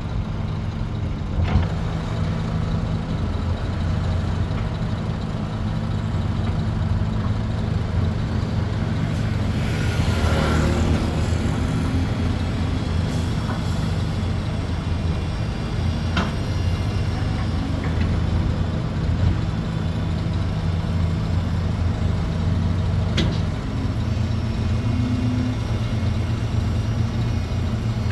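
Heavy diesel engines of large excavators and dump trucks running steadily. A hiss about ten seconds in and a few sharp knocks sit over the drone.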